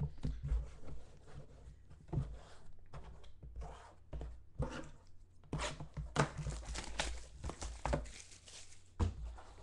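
Trading cards and their cardboard box being handled on a hard tabletop: cards shuffled, slid and set down, with light taps and paper-like rustling that grow busier about halfway through.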